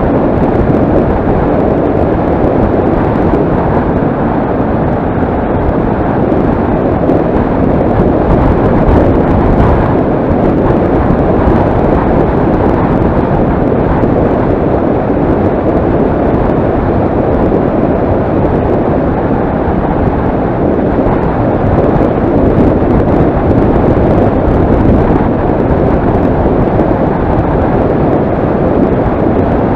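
Loud, steady wind rush buffeting the microphone of a camera moving fast downhill on an open road.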